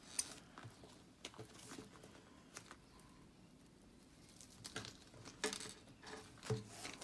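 Faint handling noises of a paper-wrapped, rolled canvas and a pair of scissors: a scatter of short paper rustles and light clicks, quieter in the middle and busier near the end, as the scissors are brought to the tape that holds the wrapping closed.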